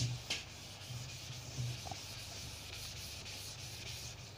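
Cloth duster wiping marker off a whiteboard: a steady rubbing hiss, with two knocks at the start as the cloth meets the board.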